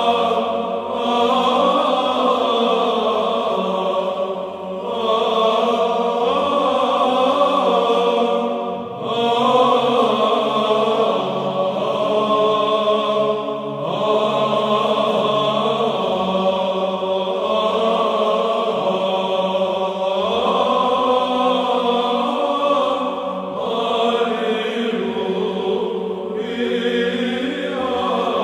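Background music of a choir chanting slow, long-held notes, with short pauses between phrases.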